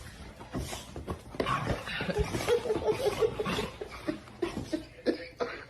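A person laughing in a quick run of short repeated bursts, with scattered knocks and rustles.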